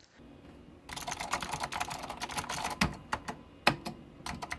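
Typing on a 1986 ComputerLand-branded Datacom DFK777NA keyboard with blue Alps switches: a quick run of sharp key clicks starting about a second in, with a brief pause past the middle.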